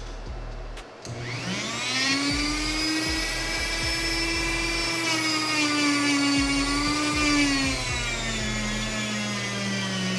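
Dremel rotary tool spinning up about a second in to a steady high whine while polishing the aluminium combustion chamber of a GY6 scooter cylinder head with a small abrasive buffing pad; its pitch drops a little near eight seconds in.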